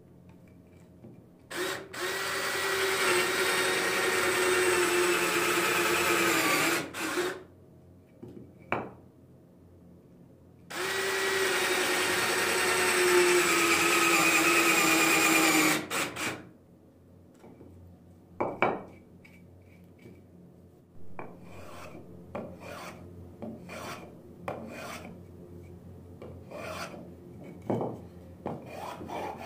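A cordless drill boring into a wooden block in two runs of about five seconds each, the motor's pitch sagging slightly as the bit bites into the wood. From about two-thirds of the way through, a small hand file scrapes across the wood's edge in short strokes, about one a second.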